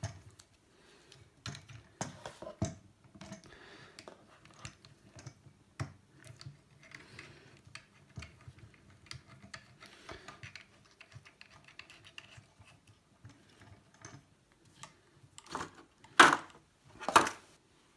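Small plastic clicks and rattles as a plastic U-grip camera rig and the clip-on mount of a shotgun microphone are handled and fitted together. Two louder knocks come about a second apart near the end.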